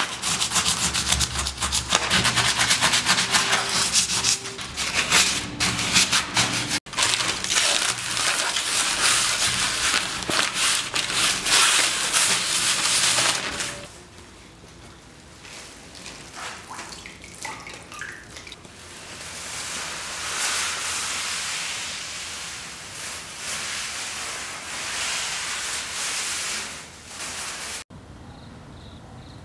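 Sponge scrubbing hard across a stone slab: dense, rapid scraping strokes, loudest through the first half. Softer rustling follows as wet printing paper and a plastic sheet are handled.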